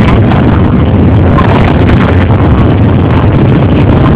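Many off-road motorcycle and quad-bike engines running together, a loud, steady, dense rumble.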